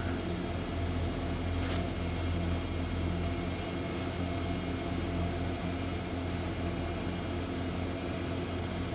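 Steady low hum of a vehicle engine idling, heard from inside the cab, with a brief faint high click about two seconds in.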